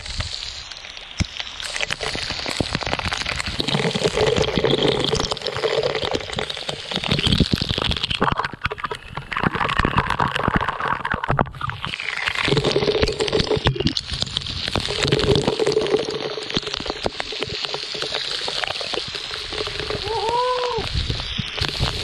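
Waterfall pouring down onto a person and the camera, with continuous splashing and spattering of water, wet and close on the microphone.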